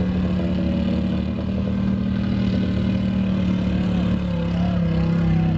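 Off-road vehicle engine running at a steady speed, its pitch dropping slightly about four seconds in.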